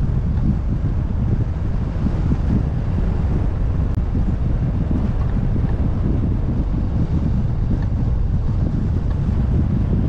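Steady low rumble of wind buffeting the camera microphone, mixed with road noise from a moving car.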